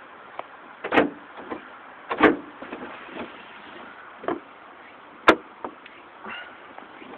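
Car door lock mechanism on a Daihatsu Tanto (L350S) clicking and clunking as the central locking is worked: four louder clunks, the sharpest about five seconds in, with fainter clicks between. The front passenger door's lock responds only slightly and does not lock automatically.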